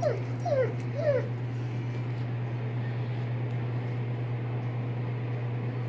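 White boxer dog whining: four short, high whimpers that fall in pitch in the first second or so, over a steady low hum.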